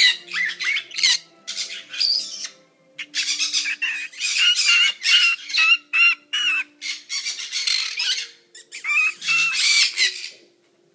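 Fiery-shouldered conure vocalizing: rapid runs of short, warbling calls in bursts separated by brief pauses.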